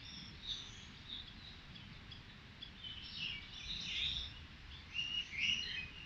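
Several small birds chirping and twittering, short calls overlapping from different directions, over a faint low background rumble.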